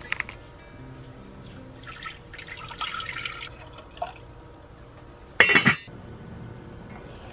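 Water running and splashing in short spells, with a louder burst of water about five and a half seconds in.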